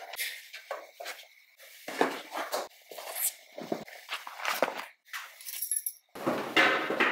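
A string of short close-up handling sounds: a MacBook's aluminium lid being shut, the flap and metal buckle of a leather bag being handled, and notepad paper being flipped. About six seconds in, a steady background noise starts.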